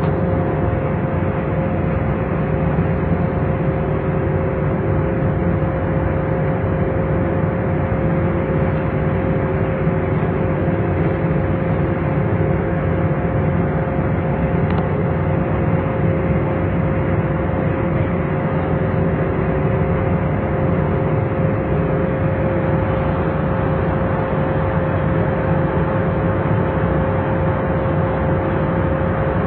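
Ship's engine running steadily, a constant droning hum with a steady tone and no change in speed.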